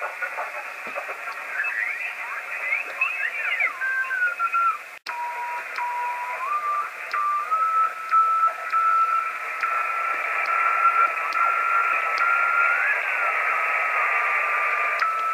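Yaesu FT-847 receiver hiss with whistling tones that glide up and down as the dial is tuned across signals on the VO-52 satellite downlink. The audio cuts out briefly about five seconds in. After that a single steady CW tone steps in pitch as the tuning is nudged, marking the right spot on the downlink frequency.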